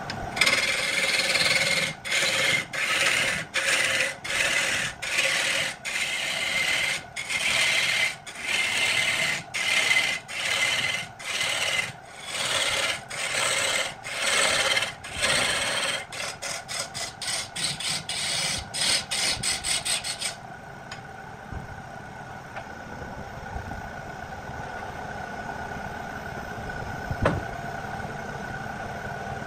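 A turning tool cutting a spinning wood blank on a belt-driven lathe in repeated short passes, a scraping rasp with each stroke, roughly one to two a second, then faster and shorter strokes. About twenty seconds in the cutting stops and only the lathe's steady running hum remains.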